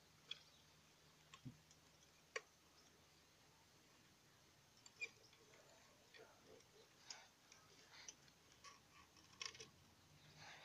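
Near silence with a few faint, scattered clicks and ticks from a hand-operated toy excavator as its plastic arm, cables and bucket work the gravelly sand.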